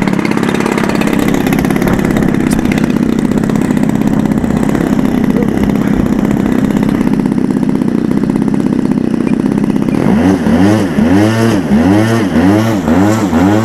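Radio-control model aircraft engine running at a steady pitch. About ten seconds in it starts rising and falling rapidly and repeatedly, about two swings a second.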